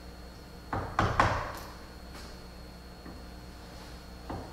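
Chisel struck with a mallet, chopping waste out of a dado in a board: three quick knocks about a second in and another near the end.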